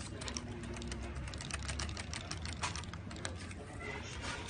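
Irregular light clicking and rattling of a small plastic toy as a kitten plays with it, many quick taps close together over a low background rumble.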